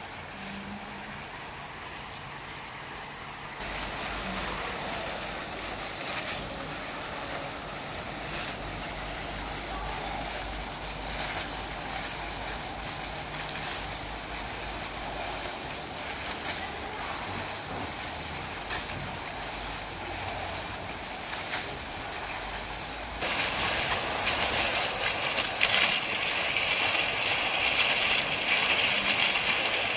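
Several Oase 35-10E foaming fountain jets running, their frothy water columns splashing steadily down onto pebbles. The splashing gets louder and brighter about two-thirds of the way through.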